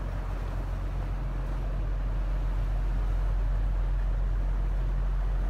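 Low, steady drone of the Great Lakes freighter Algoma Niagara's diesel engines as the ship passes close by, growing a little louder over the first couple of seconds, over a haze of water wash and wind.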